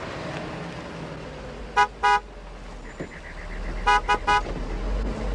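Car horn tooted twice in quick succession, then three times, over the low rumble of a car engine that grows louder as the car pulls in.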